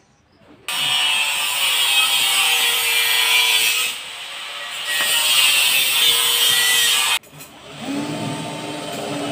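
A saw cutting, a steady rasping noise that starts and stops abruptly and eases off briefly partway through. Near the end it gives way to a different, quieter steady hum.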